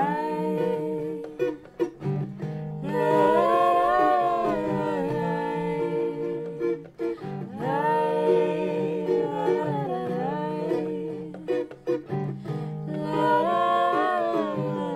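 Acoustic guitar played under a man and a woman singing a slow melody together. The singing comes in long phrases with brief breaks about every five seconds.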